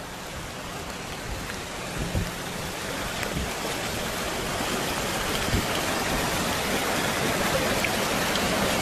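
Fast-flowing muddy floodwater rushing past, a steady roar of water that slowly grows louder, with a few soft thumps.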